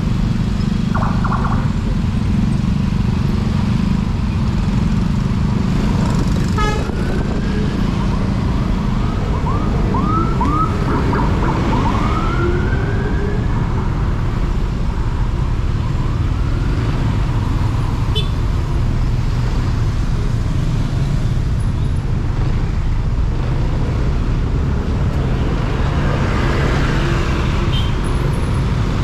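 Steady low rumble of a motorcycle and surrounding traffic in slow city congestion. There is a short horn honk about a second in, and about a third of the way through a string of quick rising siren whoops ending in one longer rising wail.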